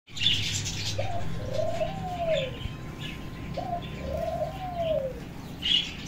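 A dove cooing twice, each call a short note followed by a long rising-and-falling coo, with small birds chirping higher up.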